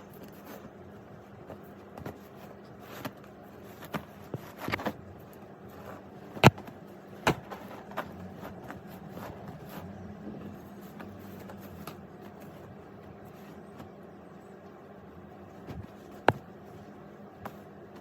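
Hands handling a parcel's packaging: scattered crinkles and rustles with a few sharp clicks, the loudest about six and a half, seven and sixteen seconds in, over a steady low hum.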